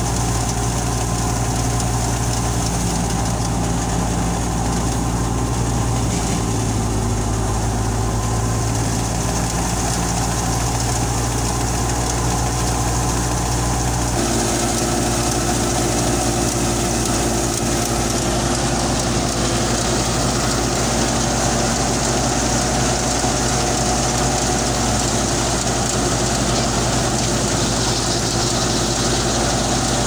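Wheat thresher running steadily, powered by a Belarus 510 diesel tractor, with a continuous engine-and-machinery hum. Its tone changes abruptly about fourteen seconds in.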